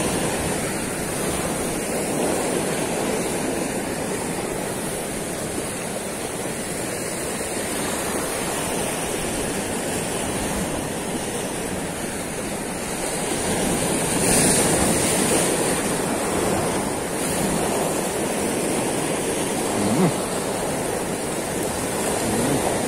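Sea surf breaking and washing over shoreline rocks, a steady rushing that swells a little about two-thirds of the way through.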